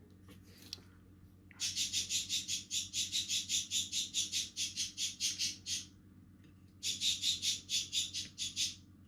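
A bird chirping rapidly in the background, about five high chirps a second, in two runs of a few seconds with a short pause between them.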